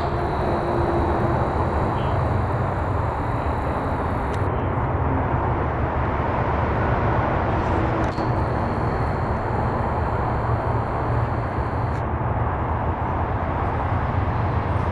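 Steady outdoor background noise: a low rumble with a hiss over it, with no single event standing out.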